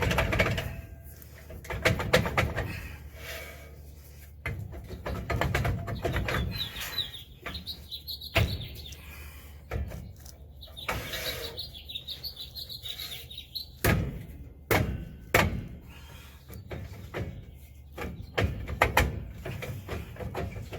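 Cast-iron brake drum being wiggled and worked loose off a 1967 Chevrolet Impala's front hub: irregular metal clunks and knocks with scraping. There are two spells of short high squeaks, the first about six and a half seconds in and the second about eleven seconds in.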